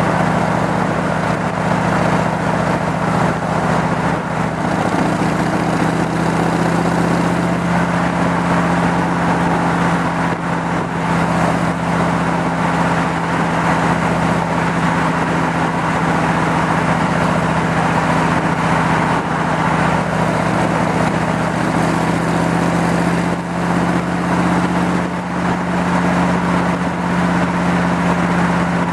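Superformance Cobra's 7.0-litre V8 running steadily while cruising, its engine speed nearly constant, with wind and road noise in the open car.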